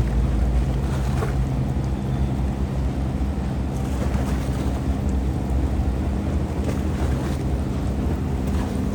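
River boat engine running steadily, with wind buffeting the microphone.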